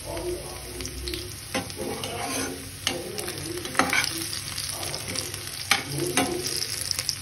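Diced vegetables and onion sizzling in hot oil in a frying pan while a spatula stirs them, scraping and knocking against the pan several times.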